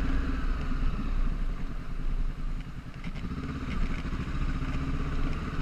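Honda CB500X motorcycle's parallel-twin engine running steadily while riding, easing off briefly about two seconds in and then pulling again, with wind and road noise.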